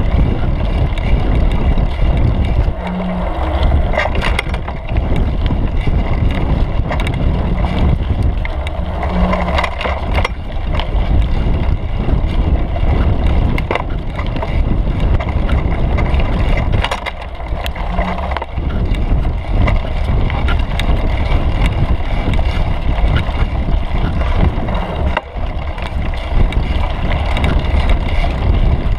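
Mountain bike ridden along a dirt singletrack, heard from a camera on the seat post: a steady rumble of tyres and wind on the microphone, with frequent clicks and rattles from the bike over the bumpy trail.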